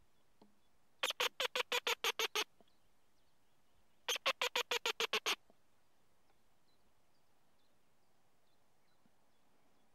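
Trøndermusa mouse-squeak fox call worked in two quick series of about ten sharp squeaks each, roughly seven a second, the second series about three seconds after the first. It imitates a mouse in distress to lure a fox in.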